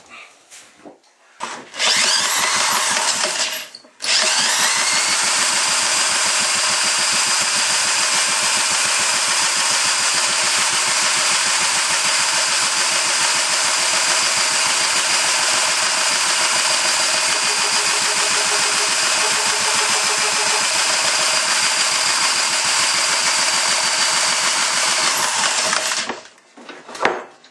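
Antique Ironhorse washing-machine engine running fast and steady after a brief first burst and a momentary stumble, then cutting out near the end. The owner puts the stop down to lost spark, suspecting the ignition points have closed up again.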